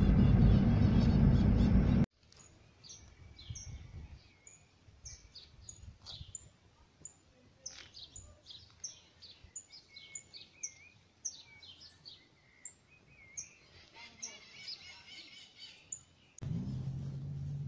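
Wild birds chirping: many short high calls that drop in pitch, repeated every half second to a second, with a few lower warbling notes among them. Background guitar music cuts off about two seconds in, and a steady low hum begins near the end.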